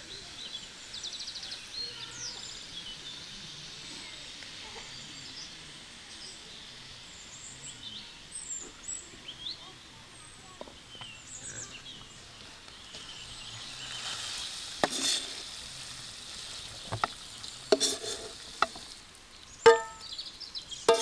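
Steady high hiss of background noise with faint short chirps above it. In the last third come several sharp knocks or clatters, the last ones briefly ringing.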